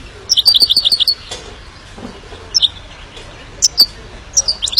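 Himalayan (grey-crowned) goldfinch singing: a quick run of high twittering notes lasting about a second near the start, a few single chirps in the middle, and another twittering run near the end.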